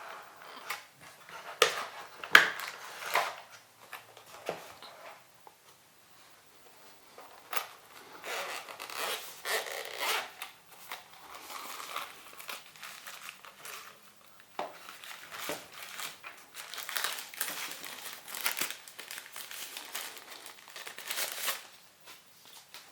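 Earphone packaging being unboxed by hand: irregular crinkling and rustling of plastic wrap with sharp clicks and taps of the box, and a short lull partway through.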